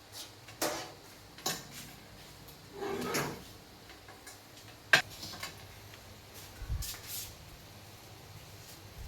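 Scattered clicks, knocks and scrapes of objects being handled, with a sharp click about five seconds in and a low thump near the end.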